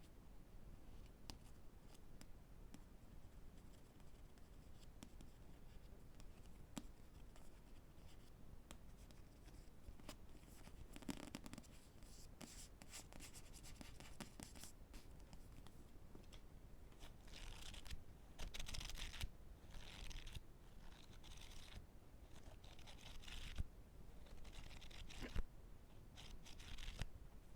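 ASMR tapping and scratching on books: faint scattered taps at first, then from about halfway a run of short, scratchy strokes about a second long each.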